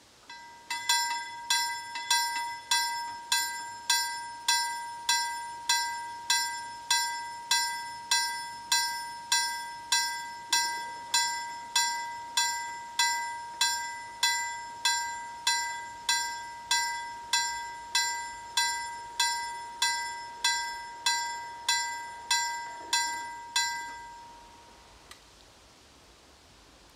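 LME KLD-4315 mechanical level crossing bell striking at a steady pace, a bit under two strokes a second, each stroke ringing on briefly. It starts as the crossing activates and stops about 24 seconds in, once the gate barriers are fully down.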